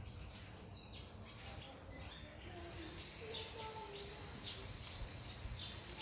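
Faint short high chirps, repeated several times, with a few soft wavering lower calls around the middle.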